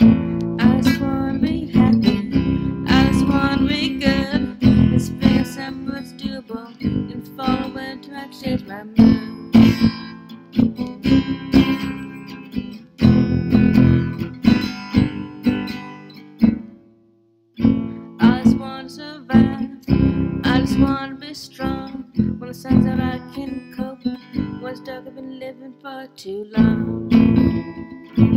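Acoustic guitar being strummed in a steady rhythm. It breaks off briefly about halfway through, then picks up again.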